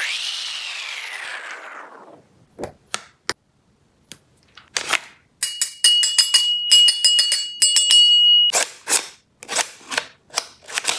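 Plastic clicks and snaps of a toy STEN MK2 gel blaster being handled, a few single clicks at first, then a quick run of them. Under the clicks, a steady high electronic tone sounds for a few seconds. Before all this, a falling whoosh fades out.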